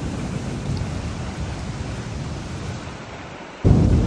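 Heavy rain falling steadily. Near the end a loud clap of thunder breaks in suddenly and rumbles on.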